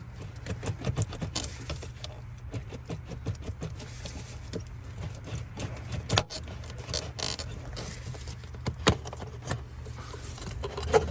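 Hard plastic clicking and rattling as the air intake tube and its clips are wiggled and pulled loose by hand, with a few sharper knocks about six and nine seconds in, over a steady low hum.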